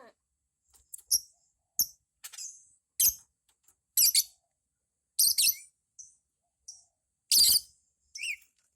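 Lovebird giving short, sharp, high-pitched calls about once a second, a few of them much louder than the rest.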